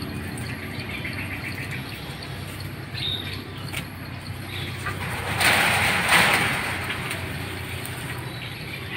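Outdoor forest ambience with a few short bird chirps, and a louder rushing noise about five seconds in that fades out by about seven seconds.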